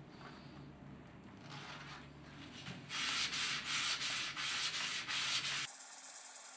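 Steel hammer head rubbed back and forth by hand on fine P800 wet/dry sandpaper: scratchy sanding strokes, faint at first. About three seconds in it turns loud, with quick even strokes about three a second, then stops abruptly near the end.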